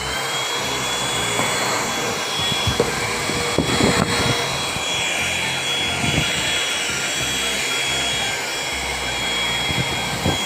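Ingco mini vacuum cleaner running at full speed: a steady high motor whine over a rushing airflow, with a few brief knocks and rattles near the middle.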